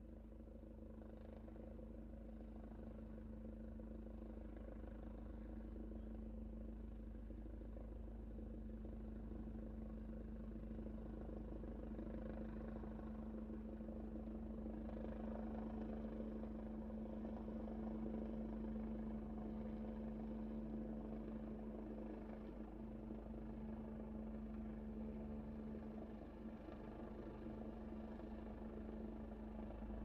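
Helicopter coming in to land: a steady engine hum over a low rotor rumble, growing gradually louder, then easing slightly over the last third.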